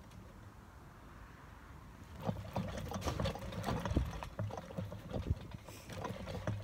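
Trampoline mat thumping and shaking under a person's feet and hands as she tumbles and lands on it, with rustling and light clicks, starting about two seconds in.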